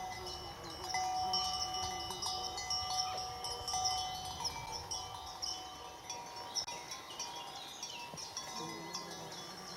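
Bells on grazing horses' collars ringing irregularly and continuously. Several bells of different pitches clink over one another as the horses move.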